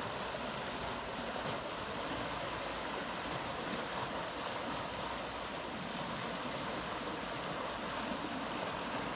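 Floodwater from a squall downpour rushing steadily over the ground in a fast, turbulent flow.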